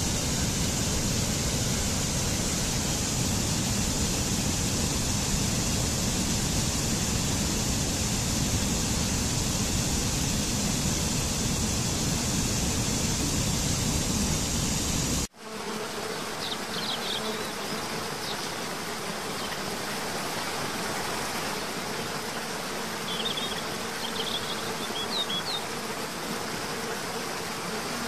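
Steady rush of a mountain stream pouring over rocks. About fifteen seconds in it cuts off abruptly and a softer rush of water follows, with a few short high chirps.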